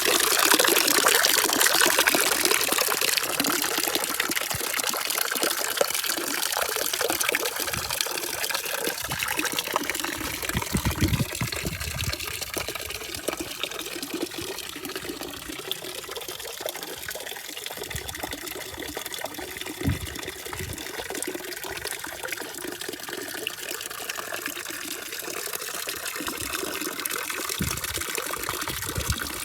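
Water rushing and splashing steadily, with a few short deeper thuds scattered through.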